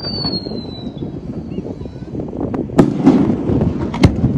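Fireworks display: a high whistle falling in pitch fades out about a second in, then two sharp bangs of shells bursting, a little over a second apart.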